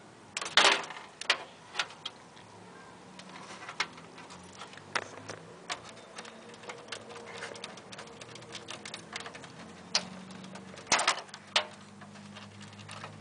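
Light clicks and knocks of hands working on computer parts inside a PC case, with a few louder clatters about half a second in and again about eleven seconds in.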